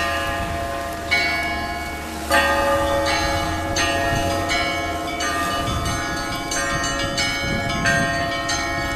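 Orthodox church bells ringing the Easter peal: several bells of different pitch struck one after another, each strike left ringing. The strikes quicken to a steady beat of about one and a half a second after about two seconds.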